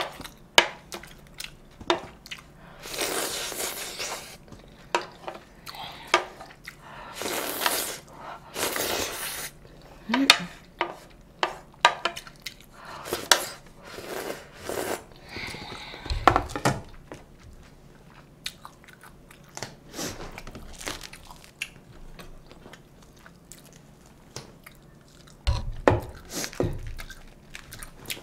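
Close-up eating sounds: a wooden spoon scraping leftover sauce off a plate, several long slurps as the plate is tipped to the mouth, and chewing with many small clicks and smacks in between.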